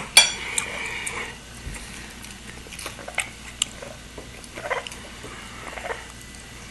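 A pet bird's short, ringing call just after the start, then scattered light clinks of cutlery on plates.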